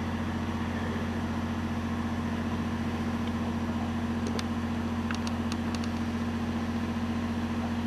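Steady low engine hum, like an engine idling at an even speed, unchanging throughout.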